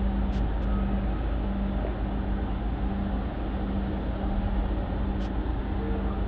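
Steady low rumble of an underground railway platform, with a constant low hum underneath.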